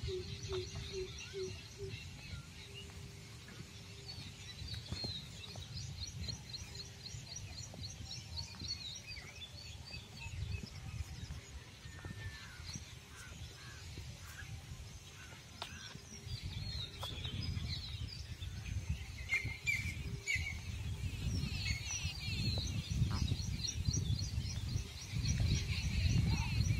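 Small birds chirping and trilling repeatedly, over a low rumble of wind on the microphone that grows louder toward the end.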